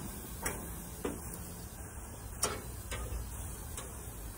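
Metal tongs clicking against the gas grill's grates as steaks are handled: four sharp clicks, the loudest about two and a half seconds in, over a low steady background.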